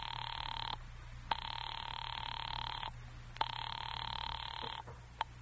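Telephone ringing signal heard down the line: a buzzing ring in bursts of about a second and a half with half-second gaps, three times. A couple of sharp clicks near the end.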